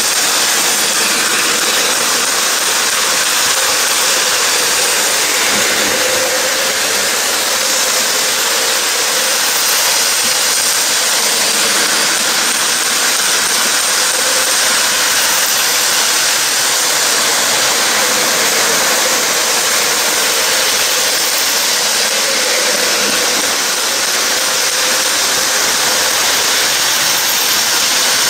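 Three-rail model trains running on their track close by: a steady rushing hiss of wheels and motors that does not let up.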